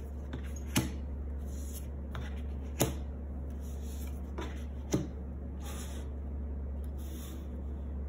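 Tarot cards being handled at a table, with three sharp card snaps about two seconds apart and a few softer taps, over a steady low hum.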